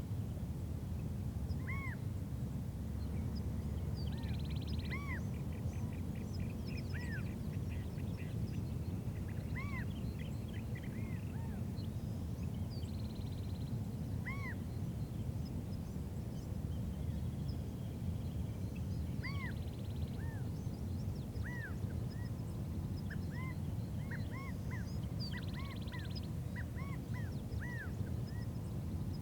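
Several wild birds calling in a forest: short arching notes repeat every second or two, with buzzy notes and trills every several seconds and a quicker run of calls near the end. A steady low rumble runs underneath.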